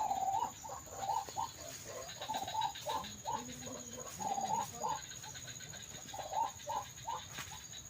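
White-breasted waterhen calls: a long run of short, repeated croaking notes in quick clusters, the lure call of an MP3 bird caller or the birds answering it.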